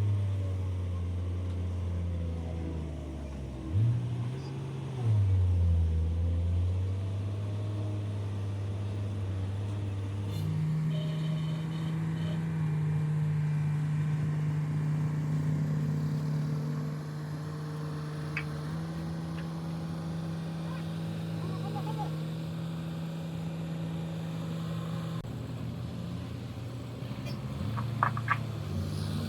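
Engine of heavy construction machinery running, its speed rising and falling briefly a few times. About ten seconds in it steps up to a higher speed and holds it steadily, with a few sharp clicks near the end.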